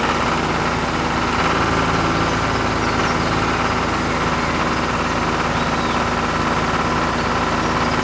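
Tractor engine running steadily at an even chugging idle, with a whine riding over it.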